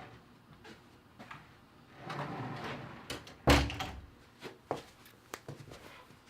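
A heavy thump about halfway through, followed by a few lighter knocks and clicks.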